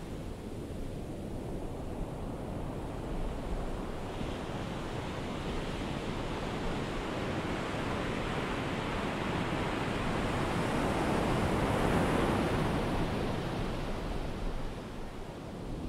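Ocean surf washing on a beach: a steady rush of waves that swells to its loudest about twelve seconds in and eases off near the end.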